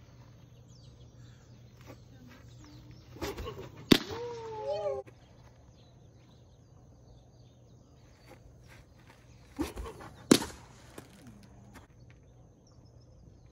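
Two baseball pitches thrown in a bullpen, about six seconds apart: each gives a sharp pop of the ball hitting the catcher's mitt, with a short vocal sound next to it.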